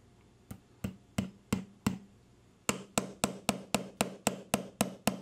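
Small hammer tapping a pin punch to drive roll pins back into a rifle's lower receiver. Five evenly spaced sharp taps, a short pause, then a quicker run of about ten taps, roughly four a second.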